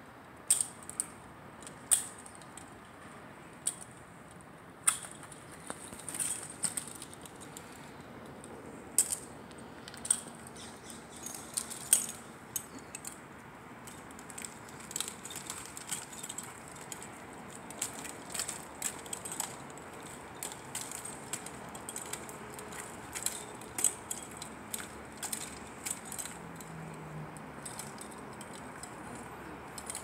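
Irregular sharp metallic clicks and jangling from a tree climber's harness hardware and lanyard as he climbs a pine trunk on spurs.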